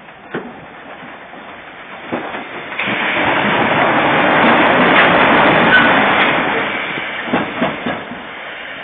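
Side-dump hopper railcars rolling slowly on the rails: a rush of wheel-and-rail noise that swells to a peak in the middle and fades, with metal clanks about two seconds in and a cluster of them near the end.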